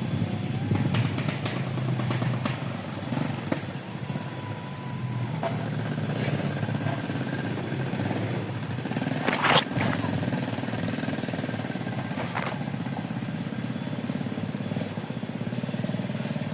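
A small engine running steadily at a constant speed, with a sharp click or knock about nine and a half seconds in and a fainter one about three seconds later.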